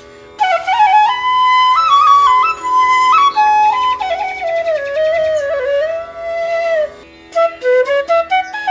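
Background music: a flute playing a slow, bending melody over a steady drone, with a short break about seven seconds in.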